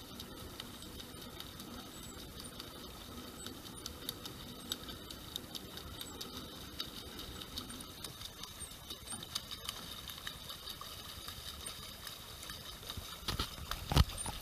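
Water lapping and splashing close by, with many small drips and ticks. A few loud knocks come near the end.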